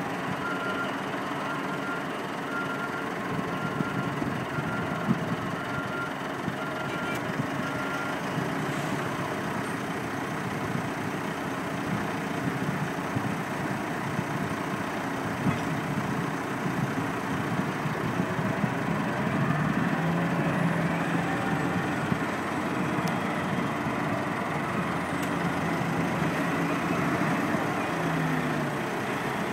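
Big diesel engines of a Cat 992K wheel loader and a Cat 777D haul truck running steadily. A reversing alarm beeps about once a second for the first eight seconds or so. In the second half the engine note rises and falls as the machines move off.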